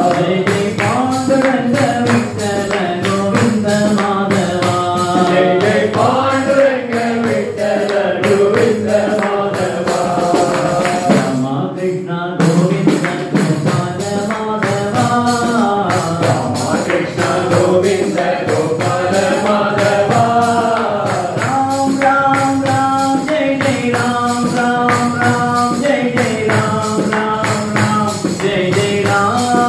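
Devotional Sai bhajan music: a melody over a steady beat of jingling hand percussion, which drops out briefly about twelve seconds in.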